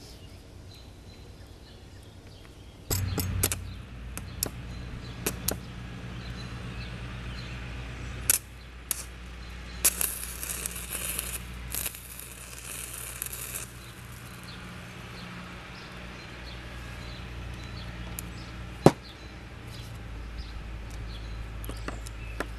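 Stick-welding arc powered by three car batteries in series at 36 volts, with a 1/16-inch rod: the arc strikes about three seconds in, then crackles and snaps over a steady low hum. A stretch of loud sizzling hiss comes near the middle.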